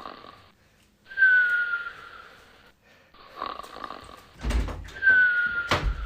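A person snoring in sleep: noisy snores alternate with a thin, high whistle that dips slightly in pitch, twice, in a cycle of about four seconds. A sharp knock comes near the end.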